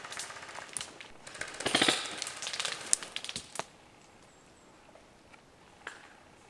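Airsoft guns firing in short rapid bursts and scattered single shots, dying away about three and a half seconds in, with a couple of faint clicks after.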